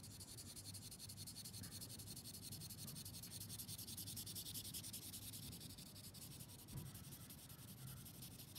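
Vine charcoal rubbing across drawing paper in rapid back-and-forth strokes: a faint, dry, scratchy hiss.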